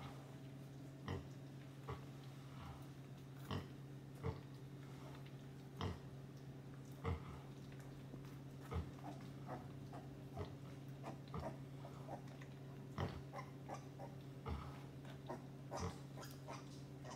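Short pig grunts, about one a second, from a sow nursing her two-day-old piglets, over a steady low hum.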